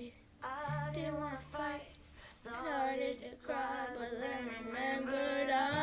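A girl singing along to a pop song played from a smart speaker, in several sung phrases with short breaks between them, over the recording's low bass line.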